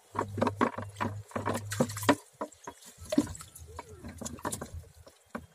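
Water in a plastic crate splashing and dripping in irregular small splashes as a fine-mesh net is shaken out over it and live prawns drop into the water. The splashes are busiest in the first two seconds and thin out after.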